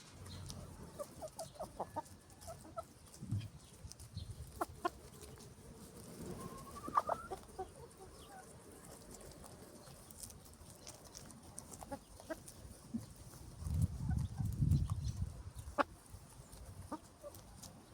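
A hen clucking in short notes, with one rising call about seven seconds in and scattered sharp clicks. A low rumble lasting about two seconds comes near the end.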